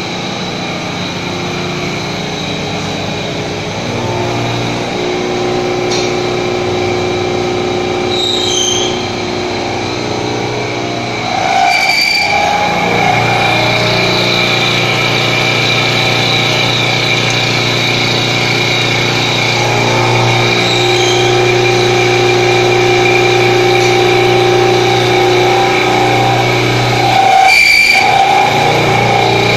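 CNC milling machine's 3.7 kW AC spindle running while an end mill cuts a metal block: a steady machine whine with several held tones that shift as the cut changes, louder from about twelve seconds in.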